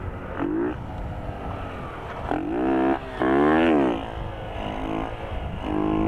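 Small semi-automatic motorcycle engine revving up and down in three throttle bursts, then holding a steadier, higher note near the end, as the rider works the throttle to lift and hold a wheelie.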